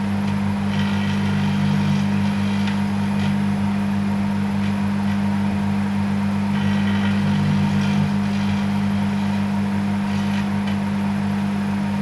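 Microwave oven running with a loud steady hum, while the metal spring of a wooden clothes pin arcs inside, adding a buzzing crackle in several spells of a second or two.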